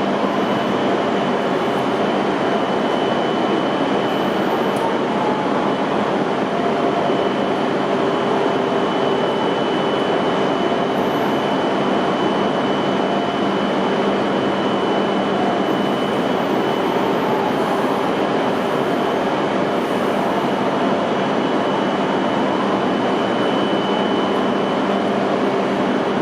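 E5-series Shinkansen train with its on-board equipment running: a steady hum with a thin high whine, unchanging throughout.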